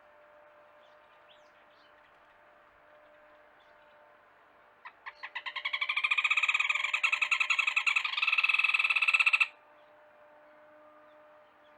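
A loud, rapid trilling animal call: a few separate pulses about five seconds in that quickly speed up into a continuous buzzing trill, held for about four seconds and then cut off suddenly. Faint steady hum of insects or frogs and a few small bird chirps behind it.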